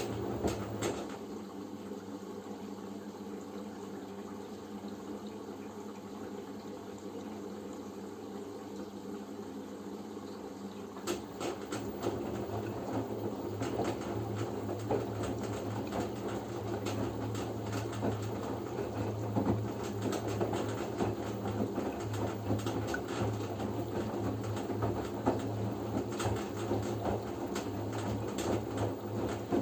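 LG F10B9LD front-loading washing machine in its first rinse: water running with a steady machine hum. About eleven seconds in it grows louder, with a pulsing motor hum, sloshing and many small knocks as the drum turns the wet load.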